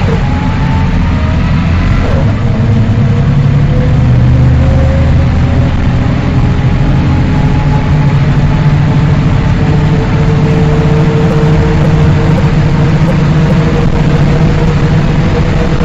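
Diesel city bus accelerating with a ZF Ecomat 4HP automatic transmission, lock-up clutch engaged, upshifting from first toward third gear. A whine sits over the engine rumble. It drops at the shifts near the start and about two seconds in, then rises slowly as the bus gains speed. This is the whine the 4HP series makes in first to third gear.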